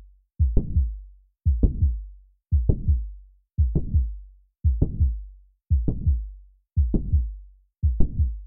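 Recorded heart sounds of mitral valve prolapse, as heard through a stethoscope at the heart's apex. The heartbeat repeats about once a second, eight beats in all. Each beat is a quick cluster of low thuds and a sharp click, followed by a short fading sound.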